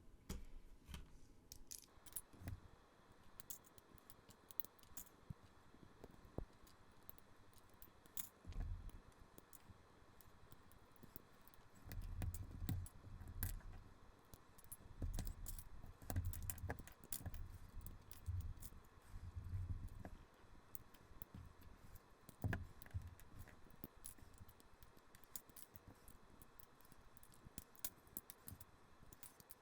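LEGO plastic bricks being pulled apart and handled: faint, scattered clicks and rattles of the pieces, with soft low knocks in the middle stretch.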